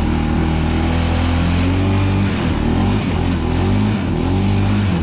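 ATV engine running as the quad is ridden along at a fairly steady pace, its pitch dipping and rising slightly with the throttle, over a steady hiss.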